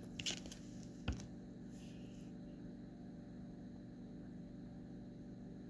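Quiet room tone with a steady low electrical hum, and a few faint taps in the first second or so.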